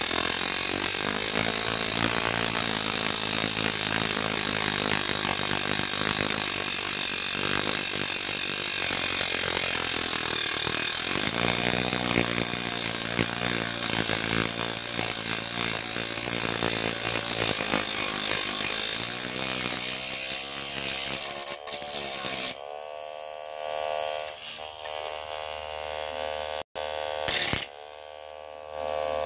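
Small handheld rotary tool with a thin cutoff disc grinding through the steel of a treble fishing hook, throwing sparks. About 22 seconds in the grinding stops and the motor keeps running free with a steady whine, with a brief break near the end.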